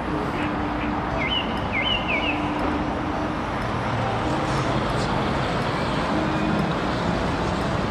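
Red single-deck London bus turning and driving past on a city street: a steady rush of road and traffic noise with faint hums that come and go. Two short high chirps about a second and a half in.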